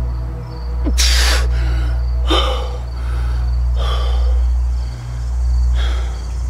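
A man's deep breaths through the mouth in a breathing exercise: four breaths, the first a sharp gasping inhale about a second in. A steady low drone and faint regular chirps run underneath.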